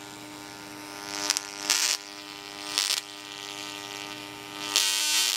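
A homemade Tesla coil buzzing steadily, with three short bursts of hissing spark discharge, the last one the longest.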